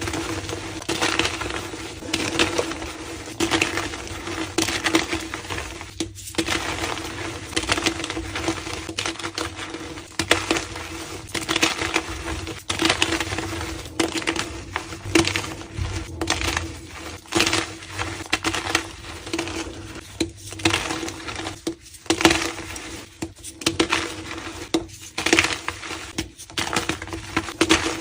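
Blocks of reformed gym chalk being crushed and crumbled by hand, giving repeated bursts of crunching and crackling, with a steady low hum underneath.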